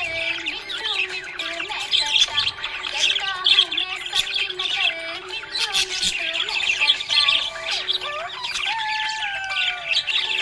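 Budgerigars chirping and warbling in quick, dense chatter, with a few squawks, over a music track.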